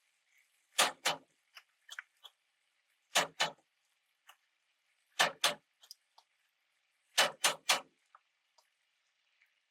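Sharp knocks in quick pairs, repeated about every two seconds, ending with a set of three: a utensil being rapped against the edge of the pan to knock tomato paste off into it.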